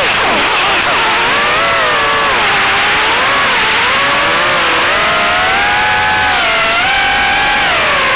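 HX115 FPV quadcopter's motors and propellers whining loudly, the pitch rising and falling with constant throttle changes, with a sharp drop in pitch right at the start.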